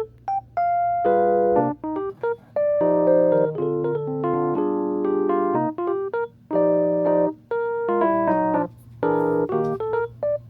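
Background music: soft electric-piano or keyboard chords and melody in short phrases, with brief pauses between them.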